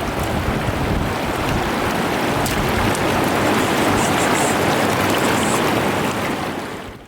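Mountain stream rushing steadily, fading out near the end.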